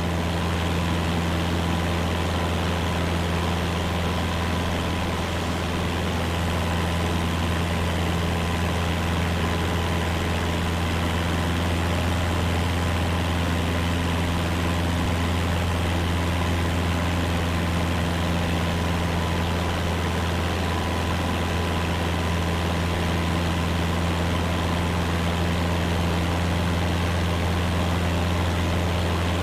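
Cessna light aircraft's piston engine and propeller running steadily, a constant low drone that holds without change.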